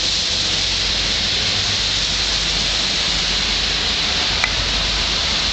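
Heavy rain falling steadily, an even hiss of downpour, with one brief click about four and a half seconds in.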